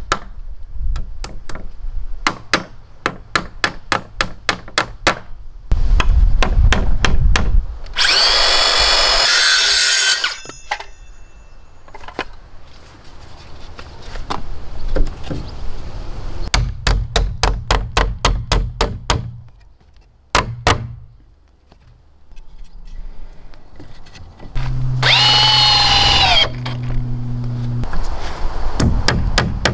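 Power tools working lumber: runs of quick, evenly spaced knocks, and a power saw cutting through wood twice with a high whine over a steady motor hum.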